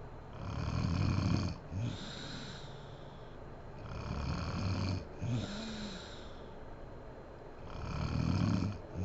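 A sleeping woman snoring loudly: three snores about four seconds apart, each followed by a breathy hiss of air.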